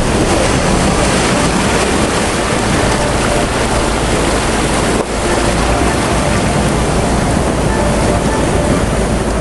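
Loud steady rushing noise, broken by a short dip about five seconds in.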